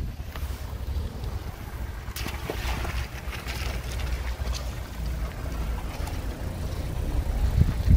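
Mitsubishi Pajero iO SUV driving slowly past on a wet, muddy dirt road. Its tyres crackle over wet grit and mud, loudest from about two to four and a half seconds in, over a steady low rumble.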